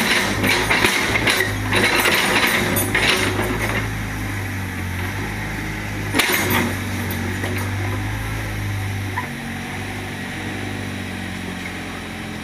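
Diesel engine of a Doosan 55W wheeled excavator running steadily, with a stretch of clattering and knocking from demolition debris for the first few seconds and a single sharp knock about six seconds in.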